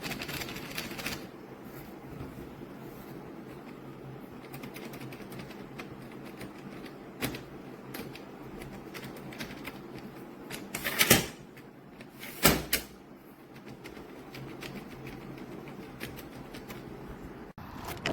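Handling noise: a few sharp clicks and knocks, the loudest two about eleven and twelve and a half seconds in, over a steady background hiss.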